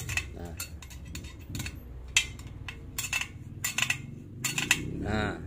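Sharp metallic clinks at irregular intervals, some ringing briefly: a spoke wrench knocking on the steel spokes and nipples of a motorcycle wheel while the spokes are tightened to true the rim.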